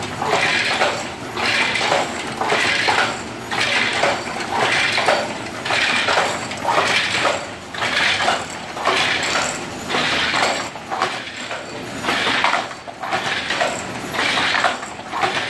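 Hand loom being worked at a steady pace: a rhythmic clatter about once a second, one burst for each pass of the weave.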